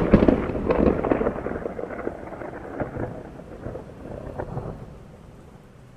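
Thunder: a sharp crack at the start, then crackling, rolling rumbles that fade away over about five seconds.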